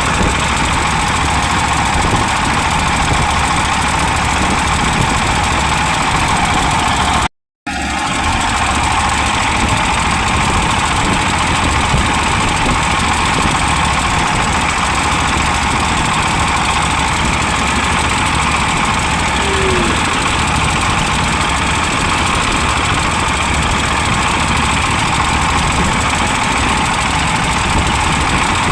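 A vehicle engine running steadily on the move, with strong wind noise on the microphone. The sound cuts out completely for a moment about seven seconds in.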